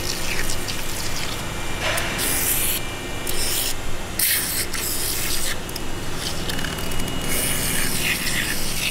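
Aerosol can of foaming engine cleaner sprayed through its straw nozzle, hissing in several separate bursts, the last near the end.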